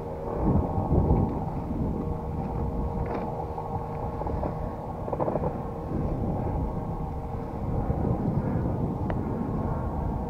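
Strong wind rumbling on the microphone, with a faint steady hum underneath.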